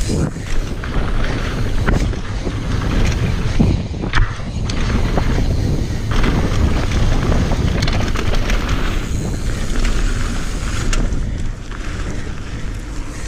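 Wind buffeting an action camera's microphone as a mountain bike rides fast down a dirt trail, tyres rolling over dirt, with scattered short knocks and rattles from the bike over bumps.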